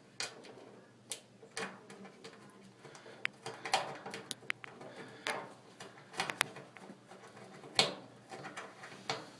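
Irregular clicks, taps and short scrapes of a replacement dryer door switch being handled and lined up into its mounting, with a sharper knock near the end.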